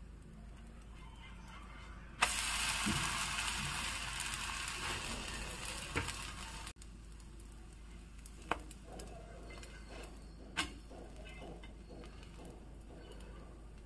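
Sudden loud sizzle on a hot nonstick dosa tawa about two seconds in, fading over a few seconds and cutting off abruptly; afterwards a few light taps and clicks of a kitchen utensil.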